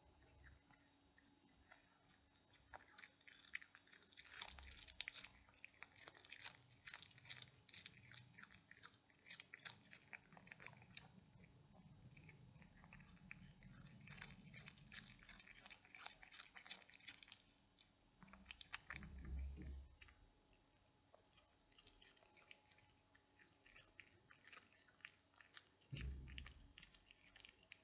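A cat chewing and crunching its food in quick bursts of small clicks. Two dull low thumps come in the second half.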